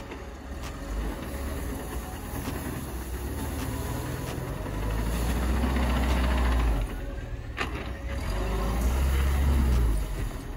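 Off-road 4x4 engine working under load as the vehicle drives through a difficult section, its low rumble rising in two louder surges.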